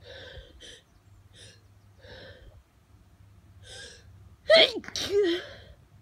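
A person with hay fever sneezing: several short, breathy catches of breath build up, then a loud sneeze comes in two quick bursts about four and a half seconds in. The sneezing is an allergic reaction to pollen.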